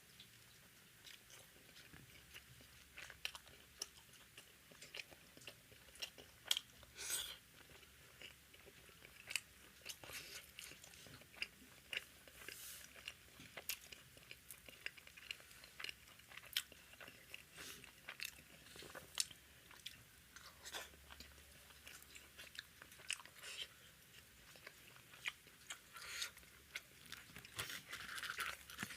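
Close-up mouth sounds of a person eating bread with curry: irregular wet chewing clicks and smacks with an occasional crunchy bite, going on throughout.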